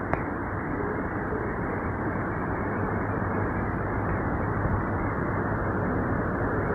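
Steady running noise of a moving passenger train heard from inside the carriage: an even rumble and rushing of wheels on rail, with one short click just after the start.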